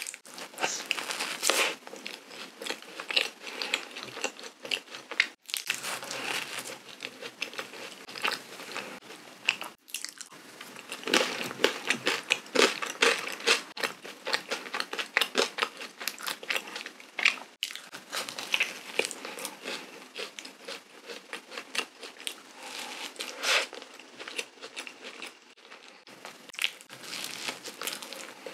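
Close-miked biting and chewing of a large sugar-dusted, cream-filled donut: a dense run of sticky mouth clicks and crackles that goes on without a break, apart from a few brief pauses.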